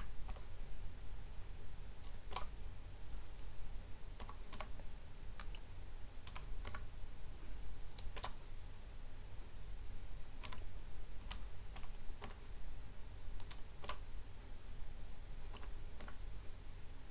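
Computer keyboard keys pressed one at a time in slow, irregular clicks, with a low steady hum underneath.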